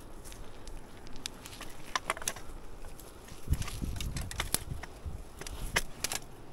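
Footsteps over loose rocks and dry grass: scattered crunches and clicks, with a few heavier low thuds about halfway through.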